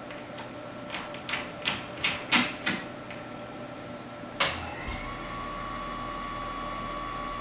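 A run of light clicks and knocks, then a sharp clack about four seconds in as the balancing machine starts. A steady whine and hum follow as it spins the wheel up to about 2,300 rpm for an unbalance reading.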